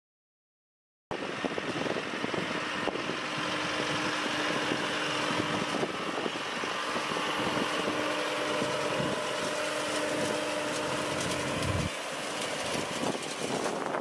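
Tractor engine running as it passes close, pulling a finger-wheel rake that rows up cut hay. The sound starts abruptly about a second in, with a steady hum under it that stops near the end.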